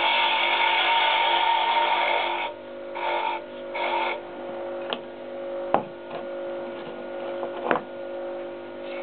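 Small wood lathe motor running with a steady hum while a hand tool cuts the spinning mahogany, a rough scraping for the first two and a half seconds, then two short touches about three and four seconds in. After that only the motor hum is heard, with a few sharp clicks.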